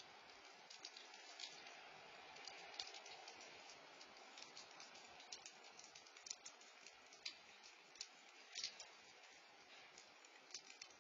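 Near silence through a Nest security camera's microphone: a steady faint hiss with soft, scattered ticks and taps, several a second.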